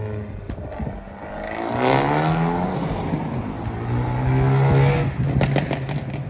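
Abarth 124 Spider's 1.4-litre turbo four-cylinder, breathing through a sports catalytic converter and an open Monza exhaust, accelerating with its revs rising and falling. Near the end it backs off into a run of sharp pops and crackles on the overrun, the pops and bangs that its custom tune adds.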